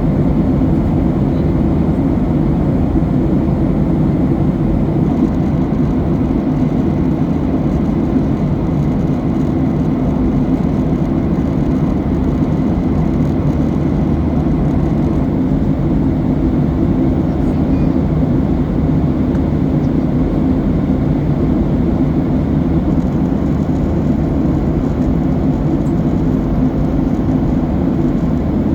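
Steady cabin drone of a Boeing 737-800 in cruise: the CFM56-7B engines and rushing airflow heard from inside the cabin as an even low rumble that does not change.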